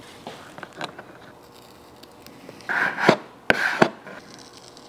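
Vinyl decal being pressed onto a plastic seat back with a plastic squeegee: two short scraping rubs, about three and three-and-a-half seconds in, each with a sharp click, amid light handling noise.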